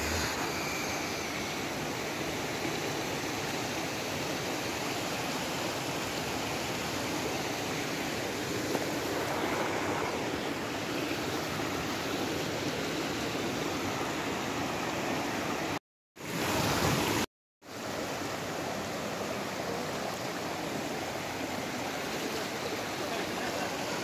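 Shallow stream rushing and splashing over rocks in a steady rush of water. It is broken by two short gaps of silence about two-thirds of the way through.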